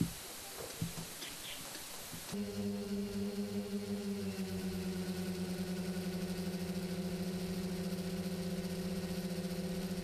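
Faint outdoor noise with a few light clicks, then a steady buzzing hum of a multirotor camera drone's motors and propellers. The hum starts suddenly about two and a half seconds in and its pitch dips slightly a couple of seconds later.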